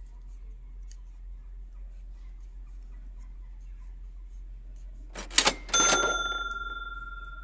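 Subscribe-button overlay sound effect: a brief click about five seconds in, then a single bright bell ding that rings out and fades over about two seconds.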